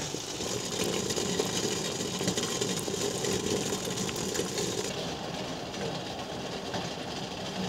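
Pots of water and maple sap at a hard boil: a dense, rapid, continuous bubbling.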